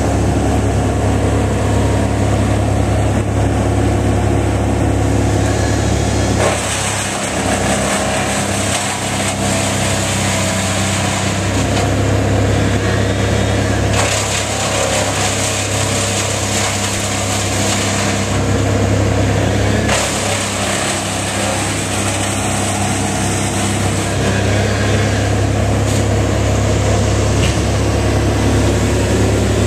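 A large engine runs steadily, with a constant low hum. A rushing, hissing noise on top of it comes and goes in spells.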